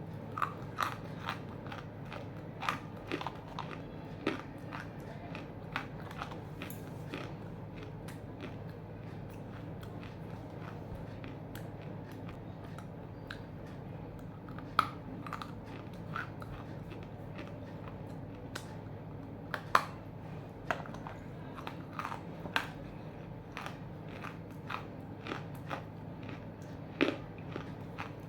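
Half-roasted edible clay chunks being bitten and chewed close up: a run of sharp, irregular crunches and crackles, with a few louder bites about 15, 20 and 27 seconds in.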